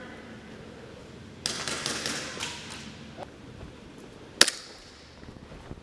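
Airsoft gunfire: a clattering run of quick sharp cracks and hits about a second and a half in, then a single sharp, loud shot about four and a half seconds in.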